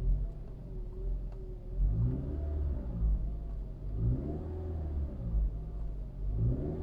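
2013 Toyota RAV4 engine being revved up and back down about every two seconds, with a whine that rises and falls in pitch with engine speed. The owner has ruled out the alternator, pulleys and pump as the cause of the whine.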